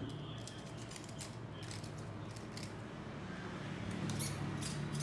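Light clicks and rattles from an RC crawler's metal suspension links and chassis as it is handled and tilted, over a low steady hum.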